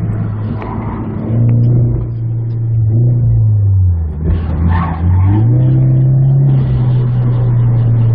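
Scion FR-S's flat-four engine heard from inside the cabin while driving hard through a cone course: the engine note holds steady, drops as the throttle eases about three seconds in, then climbs again a little after five seconds in and holds.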